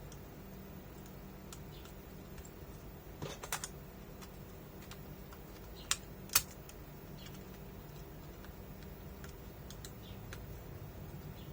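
A few small clicks and taps from handling a laptop: a short cluster a little over three seconds in, then two sharp clicks about half a second apart near the middle, the second the loudest, over a low steady hum.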